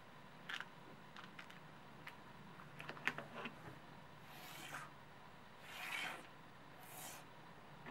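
Handling of a plastic quartz clock movement and small brass washers on a wooden tabletop: a scatter of light clicks, the loudest about three seconds in, then three short brushing, sliding sounds in the second half.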